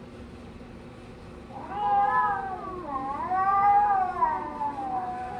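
A young child imitating a cat: two long, drawn-out meows that start about a second and a half in, each rising and then falling in pitch, the second one longer.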